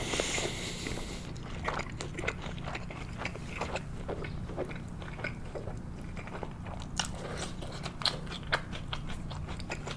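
Close-miked chewing of sushi: wet, irregular mouth clicks and soft smacks as rice and fish are chewed, with a brief hiss at the start.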